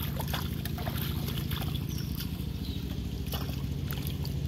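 Shallow muddy water splashing and trickling in small irregular bursts as hands and feet move through it to grab fish, over a steady low rumble.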